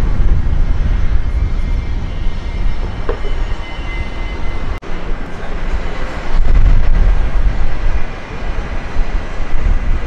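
Airbus A320-family jet airliner engines at takeoff power: a loud, steady low rumble with a faint high whine above it. The sound breaks off for an instant a little under five seconds in, then carries on as loud.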